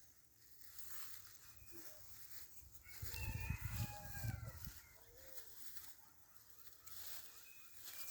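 A bird calling, with a few short pitched calls about halfway through over a low rumble.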